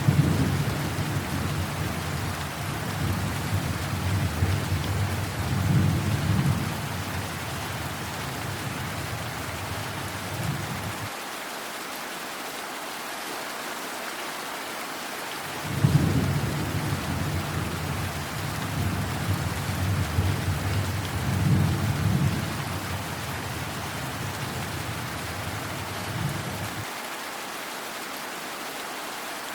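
Steady heavy rain with two rolls of thunder. Each begins with a sharp crack and rumbles on for about ten seconds: one at the start and one about sixteen seconds in.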